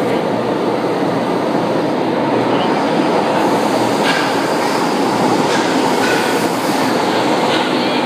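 São Paulo Metro Line 1 train running into the station from the tunnel: a loud, steady rumble of steel wheels on rail, with a few sharp clicks from about four seconds in as the cars pass along the platform.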